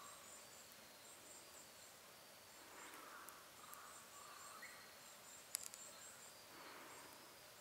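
Near silence: faint outdoor ambience with soft, high chirps repeating in short groups, and a small click about five and a half seconds in.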